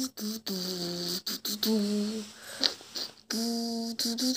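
A person's voice singing a simple low tune in short held notes, stepping up and down in pitch with brief breaks between them.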